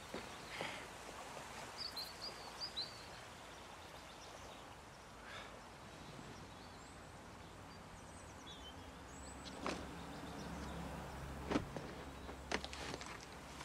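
Quiet outdoor country ambience with a few faint bird chirps, scattered soft knocks and rustles, and a low rumble that swells about ten seconds in.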